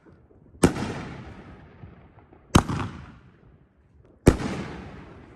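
Ten-shot 500-gram consumer firework cake firing: three loud bangs about two seconds apart, each trailing off slowly.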